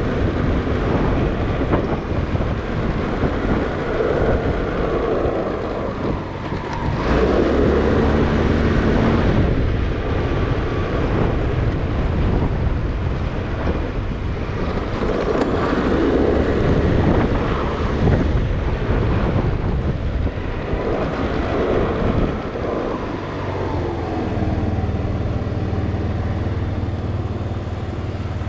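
Motorcycle engine running under way, its pitch rising and falling with the throttle, mixed with wind and road noise. From about 23 seconds in it settles into a steady low idle as the bike stops.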